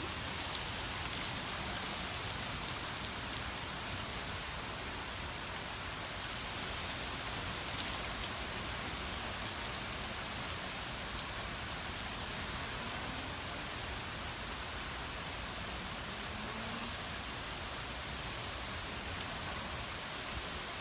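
Steady rain falling and pattering on surfaces during a thunderstorm, an even hiss with no thunder claps.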